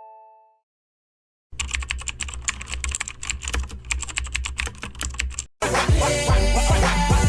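A chime rings out and fades, then after a brief silence comes about four seconds of fast computer keyboard typing, rapid clicks. Upbeat music with a strong beat cuts in near the end.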